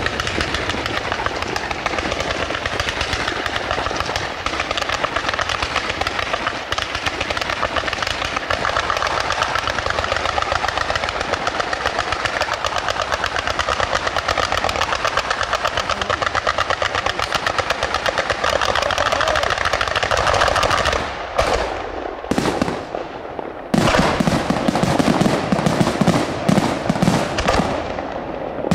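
Fireworks display: a dense rapid-fire barrage of small reports, crackling without a break for about twenty seconds, then breaking up into separate bangs with short gaps near the end.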